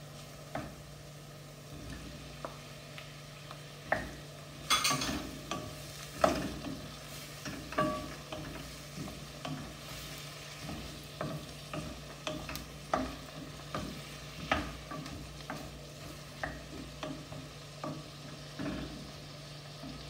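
Wooden spoon stirring and scraping chopped onions and cubed tomatoes frying in oil and butter in a stainless steel kadai, with irregular knocks of the spoon against the pan. A short burst of sizzling about five seconds in as the tomatoes go into the hot pan, over a low steady hum.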